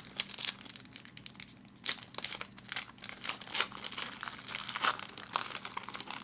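A trading card pack's foil wrapper being torn open and crinkled by hand, with irregular crackles throughout.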